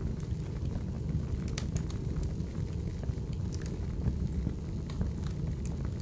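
Wood fire burning in a fireplace: a steady low rumble of the flames with scattered sharp crackles and pops from the burning wood, several times over a few seconds.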